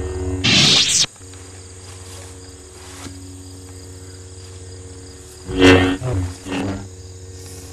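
Lightsaber sound effects: a steady electric hum with a swinging whoosh about half a second in, then three more swings in quick succession near the end.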